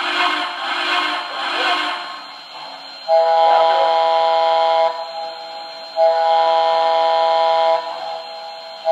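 MTH Blue Comet model steam locomotive's sound system playing a Southern Pacific Daylight sound file. Steam hisses first, then a chime whistle sounds several notes at once in two long blasts of about two seconds each, with a third blast starting at the very end.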